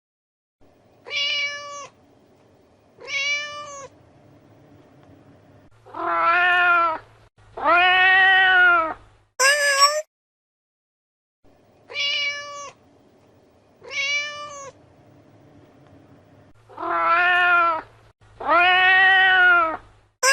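Cat meows in a repeating sequence: two short higher meows, then two long drawn-out lower meows, then a brief shrill one. The whole sequence plays twice.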